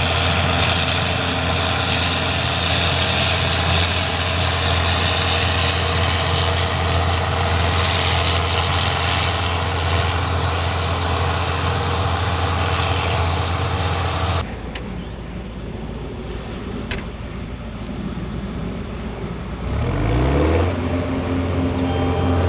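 Farm machinery engine running steadily at a loud, even pitch. About two-thirds of the way in the sound cuts abruptly to a quieter, lower rumble. Near the end an engine revs up and settles into a steady run.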